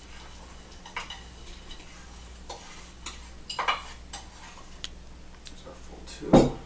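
Wooden spoon scraping brown sugar off a plate into a bowl of warm tea: a scatter of light scrapes and clicks, with one louder knock near the end.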